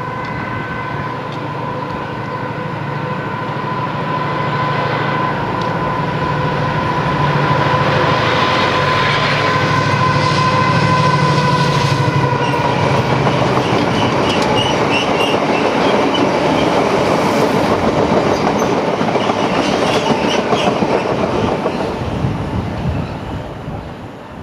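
Class 70 GE PowerHaul V16 diesel locomotive passing under power with a steady high whine over its engine note. Then a long rake of loaded wagons rolls by, wheels clicking over the rail joints with faint squeals, and the sound falls away near the end.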